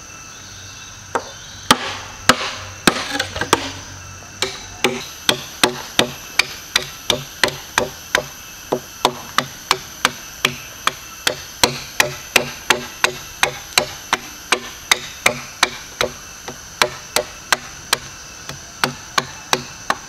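Steady series of sharp wooden knocks, about three a second, as bamboo and wood are struck during camp building. A steady high insect drone runs underneath.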